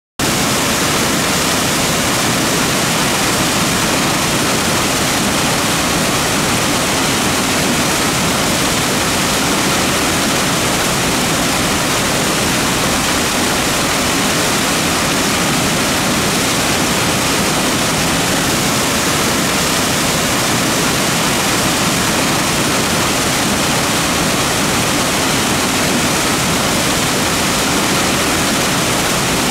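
A creek's water rushing steadily, a loud even rush that cuts in suddenly at the start.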